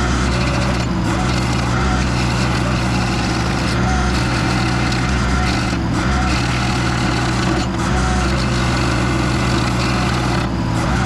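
Mini skid steer's engine running under load while a stump grinder attachment chews into a wood stump, a steady, dense mechanical grinding noise with brief dips every few seconds.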